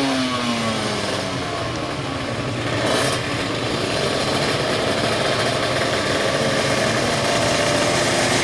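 155 cc two-stroke drag-bike engine falling back from a rev over the first couple of seconds, then running steadily at raised revs. A short hiss comes about three seconds in.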